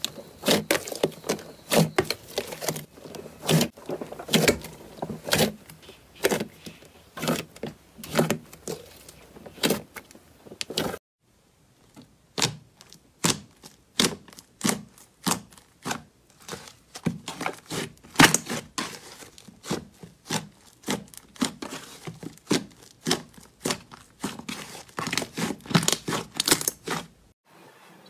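Slime being squeezed and poked by hand: a quick, uneven run of sticky clicks and pops, breaking off briefly about eleven seconds in before another batch starts.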